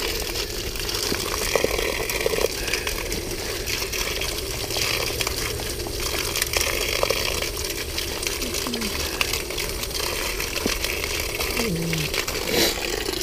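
Garden hose spray nozzle spraying water onto the rubber drive tracks of an iRobot Looj gutter-cleaning robot, a steady hiss of water as the tracks are rinsed clean of gutter grime.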